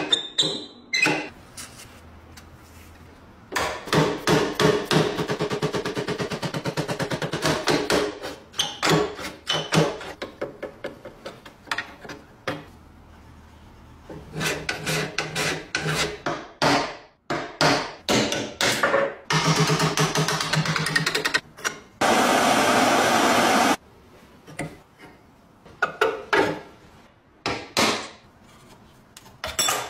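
Hand tools working on a rusty steel box lock as it is taken apart: metal knocks and clicks, long runs of rapid scraping or tapping strokes, and a steady noisy stretch of about two seconds roughly two-thirds of the way in.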